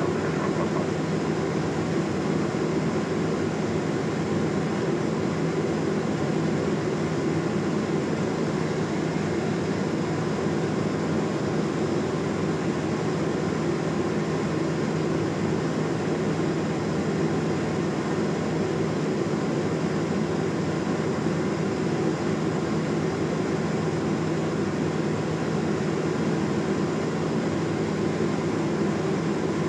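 Cabin noise of a Cessna P210 Centurion in flight: the steady drone of its turbocharged six-cylinder piston engine and propeller, with airflow rushing over the airframe, at an even level throughout.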